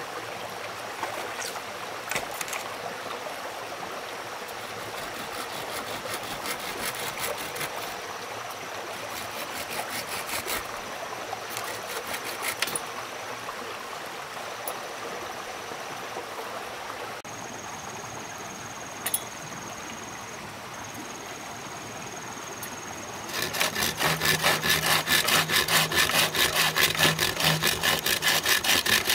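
A steady rushing hiss like flowing water, with a few light clicks. About 23 seconds in, a hand tool starts scraping back and forth on a hard material in a fast, even rhythm of roughly two to three strokes a second, much louder than the hiss.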